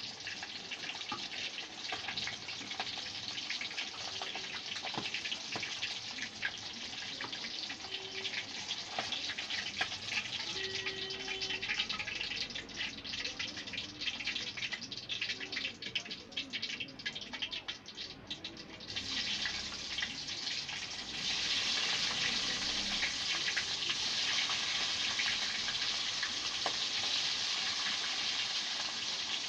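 Food frying in a pan of hot fat, a steady sizzle with scattered crackles that gets louder and more intense about two-thirds of the way through.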